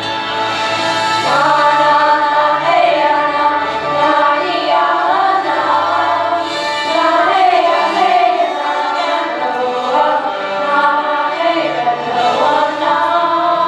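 Music with a choir singing: several voices holding and gliding between long notes over instrumental accompaniment.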